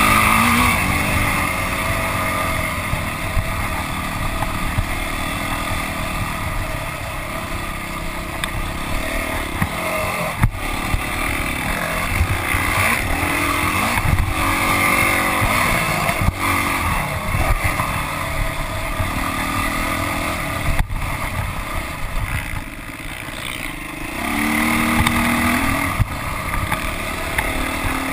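Motocross dirt bike engine revving up and down as the bike is raced around the track, heard from a handlebar-mounted camera, with wind noise and a few sharp knocks from the bumps. About three-quarters through, the engine drops off for a couple of seconds, then revs back up.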